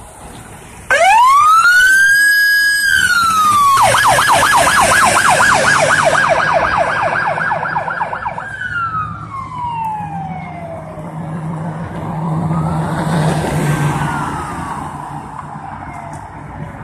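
Fire department rescue pickup's electronic siren starting about a second in with a rising wail that holds and then falls, switching to a fast yelp of about five cycles a second, then winding down; a fainter wail rises and falls near the end. A low engine hum runs beneath.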